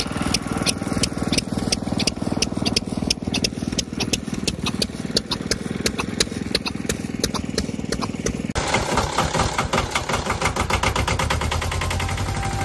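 Vintage stationary engines running, firing with an even, sharp knocking beat about three to four times a second. About two-thirds of the way through the sound changes abruptly to a faster, denser engine beat.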